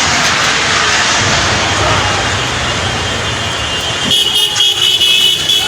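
Floodwater in a swollen river rushing with a loud, steady noise. About four seconds in, a high, shrill tone sounds for about a second and a half.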